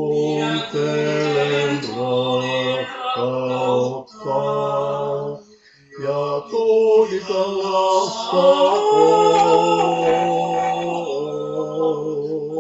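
Male vocal quartet singing a cappella in close harmony: short phrases of held chords with brief breaks between them, then a longer held chord in the second half. The song is a Finnish lullaby.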